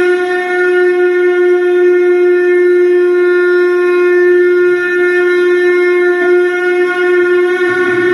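Conch shell (shankh) blown in one long, steady note.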